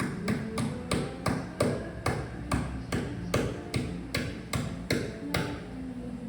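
A quick, even run of sharp knocks, about three a second, that stops about five and a half seconds in, with background music underneath.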